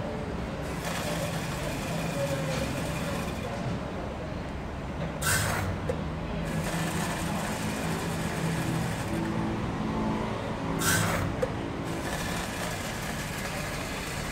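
TD 100 powder and granule dispensing machine running, its feeder giving a steady hum with a hiss. A short rush of noise comes twice, about five and eleven seconds in.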